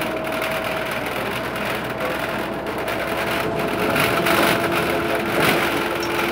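Ikarus 280 bus heard from inside the cabin while driving: the diesel engine and running noise carry on steadily, with whining tones that change pitch about halfway through.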